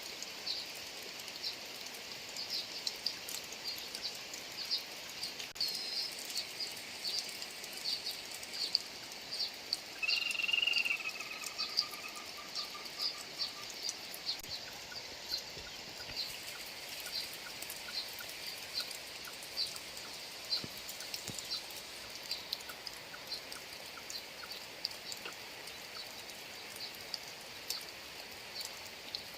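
Steady rain over a rice field, with many short high-pitched ticks throughout. About ten seconds in comes one brief animal call that falls slightly in pitch.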